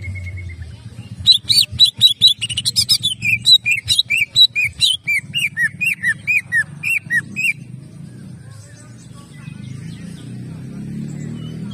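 Greater green leafbird (cucak ijo) singing a rapid 'tembakan' run of loud, sharp repeated notes: first a quick burst, then down-slurred notes about three a second. The singing stops some seven seconds in, leaving only a low background rumble.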